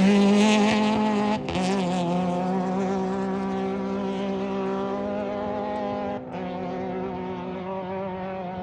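Off-road race vehicle engine running at high, steady revs. It drops out briefly twice, about a second and a half in and again near six seconds, and slowly fades.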